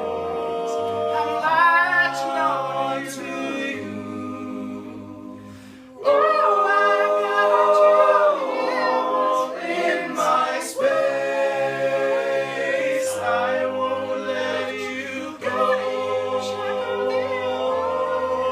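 Layered a cappella voices singing held, wordless harmonies over a pulsing low bass part. The sound thins and fades toward about five seconds in, then comes back fuller and louder from about six seconds.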